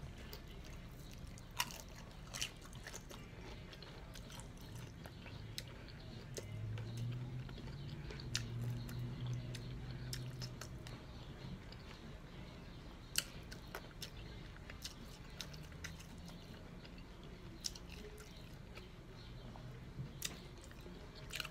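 A person chewing a crunchy hard taco shell close to the microphone, with scattered sharp crunches as the shell breaks. A low hum sounds from about six to ten seconds in.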